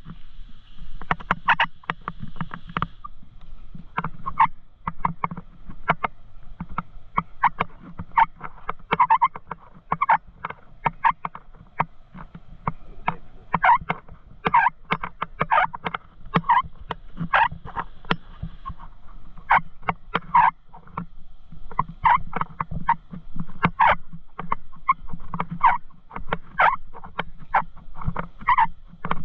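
Footsteps crunching on a sandy path at a walking pace of about two steps a second, with a few short pauses. A faint steady high hum sits underneath early on and again about two-thirds of the way through.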